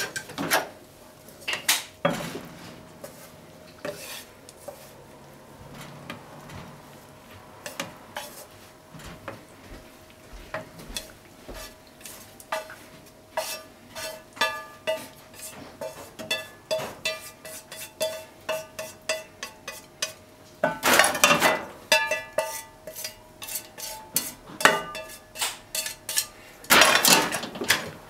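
Wooden chopsticks tapping and scraping on a nonstick frying pan as stir-fried cabbage and enoki are pushed out of the tilted pan into a bowl. The clicks come in quick irregular runs, with two longer, louder scrapes near the end.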